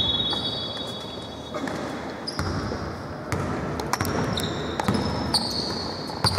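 Basketballs bouncing on an indoor court in irregular thuds, with several long, high, steady squeaks and voices echoing in the hall.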